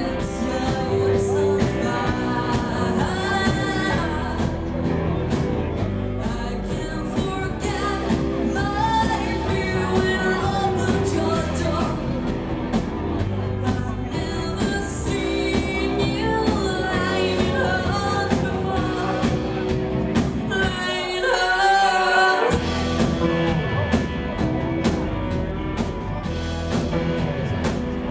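Live rock band playing: a female lead vocal over electric guitars, bass and drums. About 21 seconds in, the bass and drums drop out for about a second and a half, leaving voice and guitars, then the full band comes back in.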